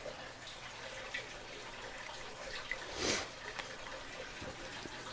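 Faint small handling noises with one short scratchy sound about three seconds in: a felt-tip marker being used to mark an opened padlock.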